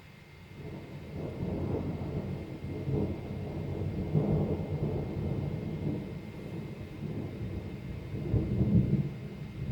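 Thunder rumbling: a deep roll that swells up about half a second in and rolls on with louder surges around the middle and again near the end.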